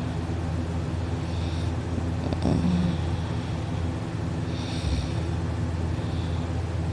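A sleeping person snoring heavily, with a breathy snore every second or two and a rough, low rattling snore about two and a half seconds in, over a steady low hum.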